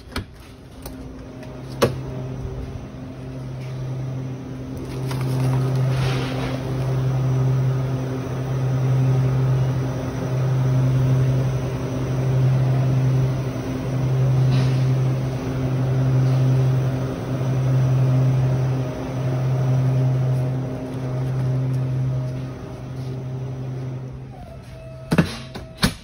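Walk-in cooler's evaporator fans running with a loud low hum that swells and dips in an even pulse about every second and a half, growing louder and then fading away near the end. A sharp click of the metal door latch about two seconds in, and two more knocks near the end as the door is shut.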